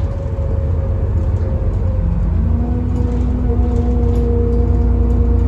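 Interior of an Alexander Dennis Enviro400 double-decker bus on the move: a steady low engine and drivetrain rumble, with a steady whine setting in about two seconds in.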